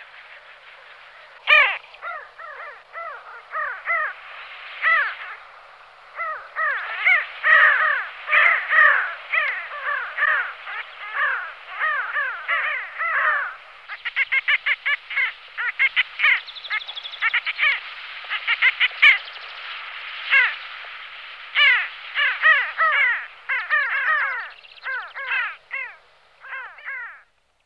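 Pin-tailed sandgrouse calling: a rapid, continuous series of short calls from several birds, often overlapping at different pitches.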